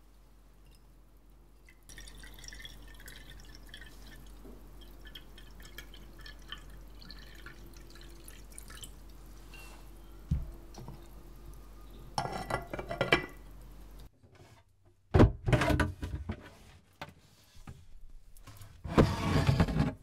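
Water from a cast-iron kettle trickling and dripping into a clay pot: a steady run of small ticks and drops, with a louder splashy burst about twelve seconds in. Near the end, after a break, come two louder bursts of handling noise.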